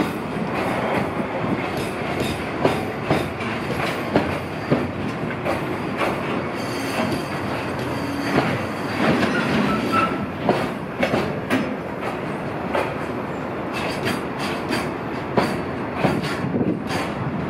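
Container flatcars of a freight train rolling past, their wheels clacking over rail joints in an uneven run of sharp clicks over a steady rumble, with a short faint wheel squeal near the middle.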